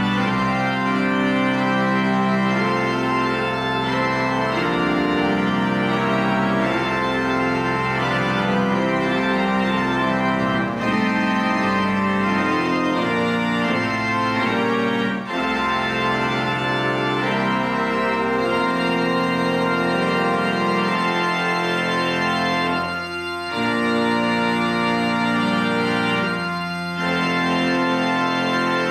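Church organ playing a hymn in full, held chords that change step by step, with short breaks between phrases.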